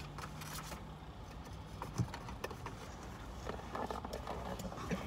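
Low steady hum inside a car cabin, with one sharp click about two seconds in and a few small rustles and ticks after it.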